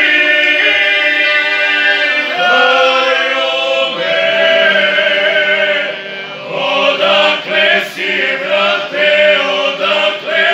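Male folk singing group of five singing unaccompanied in several parts, a traditional folk song with long held notes. From about six seconds in, the notes become shorter and more broken.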